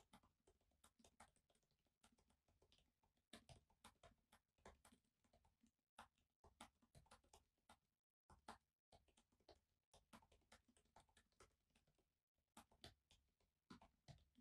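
Faint typing on a laptop keyboard: runs of quick key clicks, several a second, broken by short pauses.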